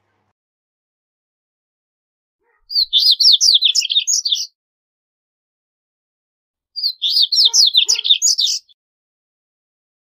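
Male double-collared seedeater (corbatita) singing: two song phrases of about two seconds each, fast runs of high twittering notes, separated by a few seconds of silence.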